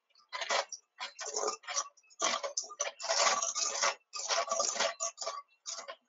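Electric hand mixer on slow speed, its beaters churning a crumbly butter mixture and ticking against a stainless steel bowl. The sound comes in short, choppy bursts with brief gaps between them.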